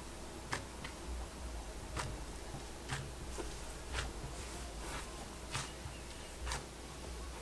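Cloud slime being squished and stretched by hand, giving short crackling clicks about once a second over a low hum.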